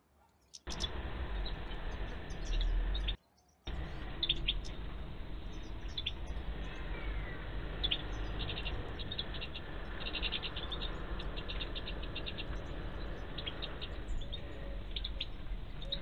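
Caged European goldfinches calling in short chirps and twitters, with quick runs of ticking notes, over a steady low rumble. The sound cuts out briefly twice near the start.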